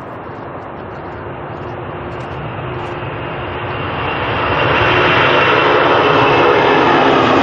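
Jet airliner's engines, a rushing noise with a steady high whine, growing steadily louder as the plane approaches and holding loud over the last couple of seconds.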